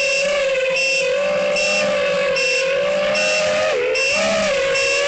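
FPV quadcopter motors whining at a steady pitch that wavers and dips briefly with throttle changes. A short high beep repeats about every 0.8 s.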